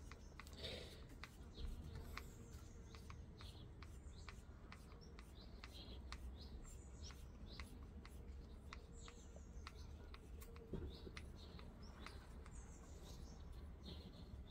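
Near silence, with faint small clicks scattered throughout and a few faint high, short chirps like distant birds.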